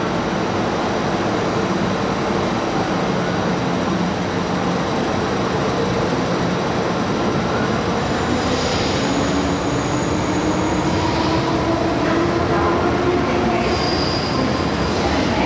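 MTR Kwun Tong Line M-Train (a Metro-Cammell electric multiple unit) running through an underground station without stopping: a steady rumble of wheels on rail with motor hum. A slowly rising whine comes in during the second half, and brief high wheel squeals come near the end.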